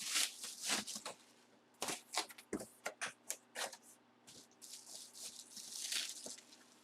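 Bubble wrap being handled and wrapped around an item: a quick run of crisp crackles and crinkles, then a softer, longer rustle near the end.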